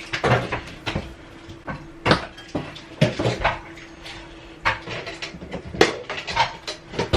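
Irregular knocks and clatters of a hose being handled and pulled loose at the back of a washing machine, over a faint steady hum.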